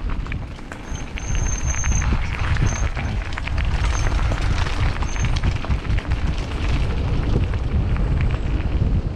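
Wind buffeting the microphone of a helmet- or bike-mounted camera, over the rolling and clattering of a mountain bike on a dirt trail, getting louder about a second in. A thin high squeal sounds briefly several times in the first half.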